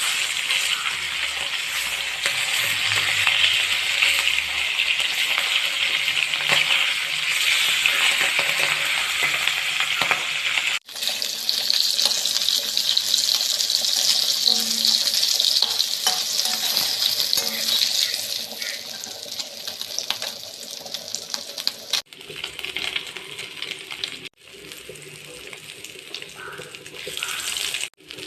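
Hilsa fish pieces sizzling as they fry in hot oil, with a few light metallic clinks. The sizzle breaks off abruptly a few times and is quieter near the end.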